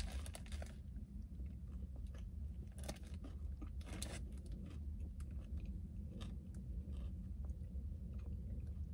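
Close-up mouth sounds of someone biting into an In-N-Out Double-Double burger and chewing it. There is a bite right at the start, then steady chewing with scattered small clicks and a couple of louder crunches midway.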